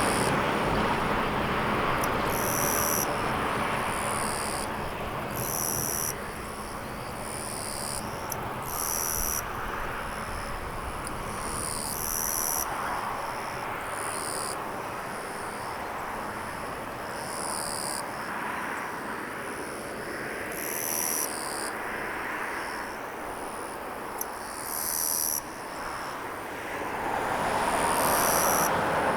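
High-pitched insect calls in short bursts every second or so over a steady rushing background.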